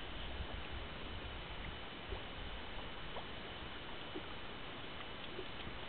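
Steady low rush of outdoor background noise, with a thin steady high whine and a few faint clicks.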